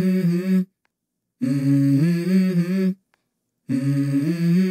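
A voice humming a short melody of a few held notes that step up and down. It comes in phrases of about a second and a half, each cut off abruptly into silence.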